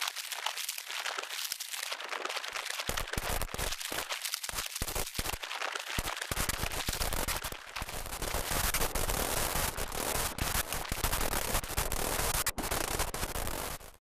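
Metal spoon and tea-bag staple arcing inside a running microwave oven: rapid, dense crackling and snapping that thickens about three seconds in. The sign of metal sparking in the oven.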